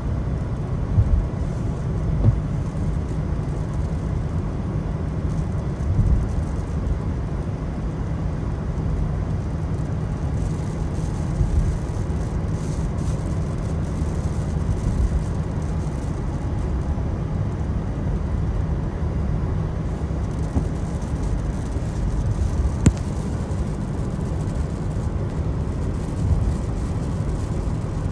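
Car driving on a wet road in the rain, heard from inside the car: a steady low rumble of tyres and engine, with a few small bumps and one brief sharp tick late on.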